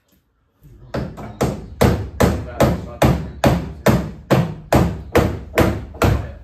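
A hand hammer beating the car's torn wheel-arch sheet metal back into shape. The blows are steady, about two and a half a second, each with a short metallic ring, and begin about half a second in.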